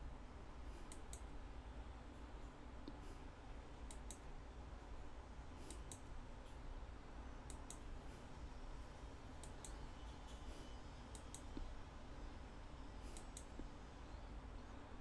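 Faint computer mouse clicks, mostly in quick pairs, coming every one to three seconds as the document is paged through, over a low steady hum.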